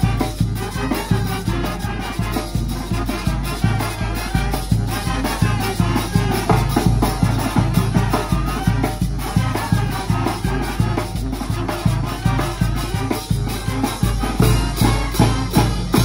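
Oaxacan brass band playing a lively piece: trumpets, trombones, saxophone and sousaphone over a steady, even beat of bass drum and hand cymbals.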